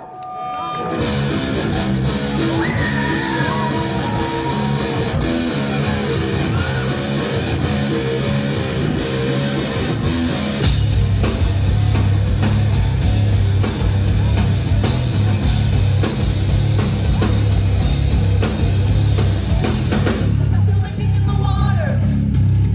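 Live heavy rock band playing: a distorted guitar riff with drums starts about a second in. About ten seconds in the full band comes in louder, with heavy bass and hard drum hits.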